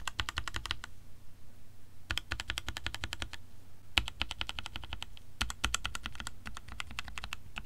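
Mechanical keyboard switches tapped rapidly in about six short bursts of quick clicks with brief pauses between, one key after another. The keys are a sound test of switches lubricated with household substances: one unlubricated, the others with motor oil, butter, soap, cream and cooking oil.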